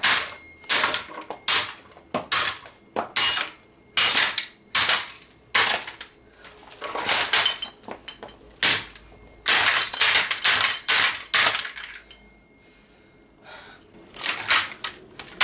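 Repeated hard blows smashing a 1/5-scale radio-controlled car, about one or two sharp cracking impacts a second with clattering breakage, and a short pause near the end.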